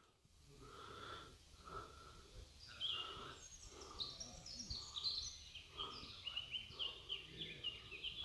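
Faint woodland birdsong: quick runs of short falling chirps set in about three seconds in, over softer notes lower down that repeat roughly once a second.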